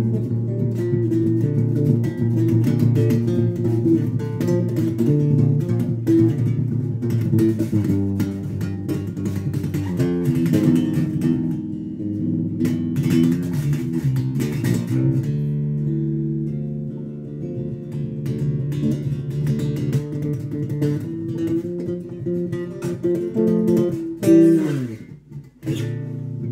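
Electric bass guitar playing a continuous riff of low plucked notes. About 24 seconds in, the pitch slides steeply downward, and the sound briefly drops away before the playing resumes.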